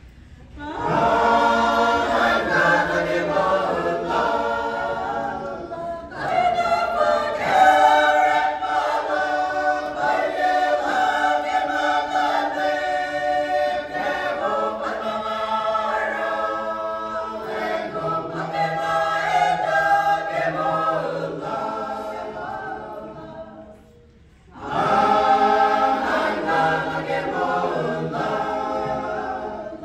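Mixed choir of men's and women's voices singing a hymn from hymnbooks. The singing starts about a second in, fades to a brief pause near the end, then picks up again.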